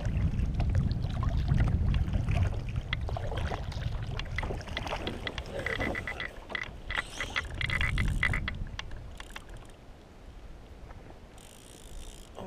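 Fishing reel being cranked to bring in a hooked fish: a run of fast mechanical clicking and ratcheting, densest just past the middle. Low rumbles are loud in the first few seconds and again about eight seconds in.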